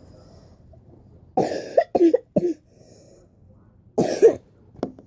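A child's voice making short, harsh, cough-like bursts in two spells: several bursts about a second and a half in, then another spell at about four seconds.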